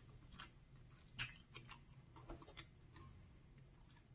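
Near silence with faint, scattered mouth clicks from chewing a sour gummy candy straw.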